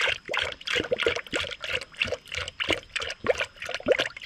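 Engine coolant poured from a plastic jug into a spill-free funnel on the radiator filler, gurgling in quick, irregular glugs, several a second, as the cooling system is refilled after a flush.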